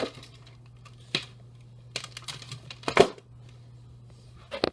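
Scattered clicks and knocks of hands working a desktop PC and its keyboard at power-up, the loudest about three seconds in, over a steady low hum.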